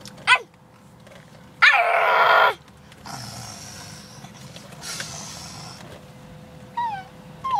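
A young child imitating a dog: a short high yip, then a loud, rough growling bark lasting under a second, about two seconds in. Near the end come short falling whiny cries.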